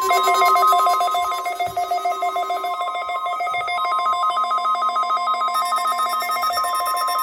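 NOAA Weather Radio warning alarm tone: a steady 1050 Hz tone sounding for a Required Weekly Test. A rapidly pulsing, ringing two-tone electronic beep is layered over it.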